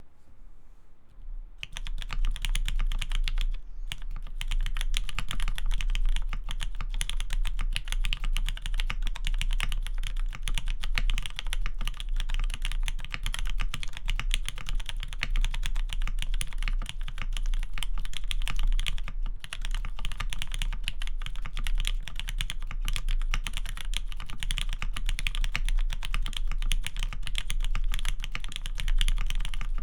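Fast, continuous typing on a gaff. 60 custom mechanical keyboard with lubed Cherry MX Black linear switches in a sprung aluminium plate and GMK keycaps. The typing starts about a second and a half in, with one short pause soon after.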